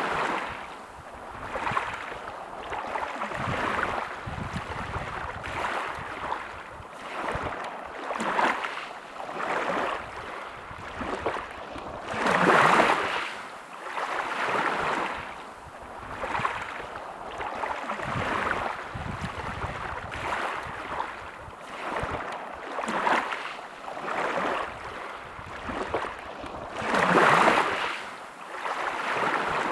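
Sea waves washing on a shore: a rushing noise that swells and fades every second or two. Two bigger waves break, one about halfway through and one near the end.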